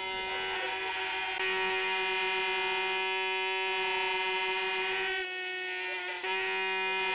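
Several plastic vuvuzela-style horns blown together, a steady buzzing drone of overlapping pitches. The sound thickens about a second and a half in and dips briefly about five seconds in before picking up again.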